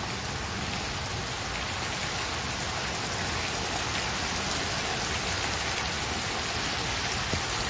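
Steady rain falling on a street and parked cars, the quick wind-driven rain that comes ahead of an approaching hurricane.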